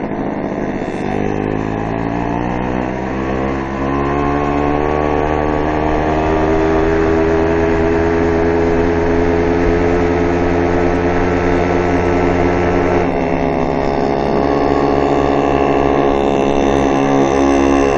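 Fantic Motor Issimo two-stroke moped engine running hard uphill, heard from the rider's seat. Its pitch climbs over the first several seconds and then holds steady at high revs. A choppy low rumble joins about two-thirds of the way through.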